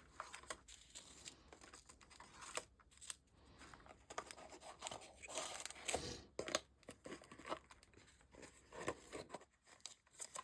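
Quiet, irregular rustling and crinkling of craft packaging, with scattered small clicks and scrapes, as small paper embellishments and bagged sequin mixes are handled and put back in.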